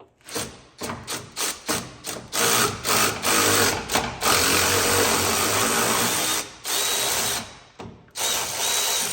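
Cordless power tool run in short trigger blips over the first two seconds, then in longer runs of a few seconds with brief pauses, spinning out a fastener that has just been broken loose.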